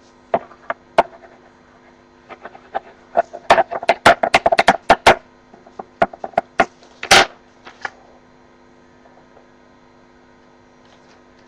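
Irregular sharp clicks and taps, a quick flurry of them in the middle and one louder one a little after, over a steady electrical hum.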